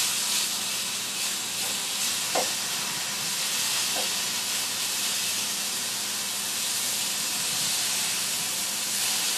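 Liver frying in a hot pan: a steady sizzle, with two faint brief knocks about two and a half and four seconds in.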